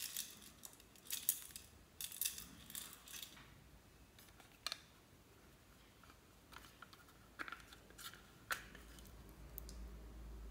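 Small hard plastic clicks and taps from handling toy plastic cases: a quick run of clicks and rustling in the first three seconds, then a few single clicks, the sharpest about eight and a half seconds in, as the pink candy-shaped case snaps open.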